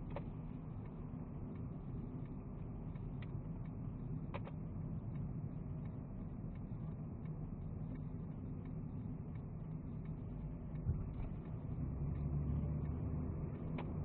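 Car cabin noise while driving, picked up by a dashcam's built-in microphone: a steady low rumble of engine and tyres on the road, with a few faint clicks, a brief thump about eleven seconds in, and the rumble growing a little louder near the end.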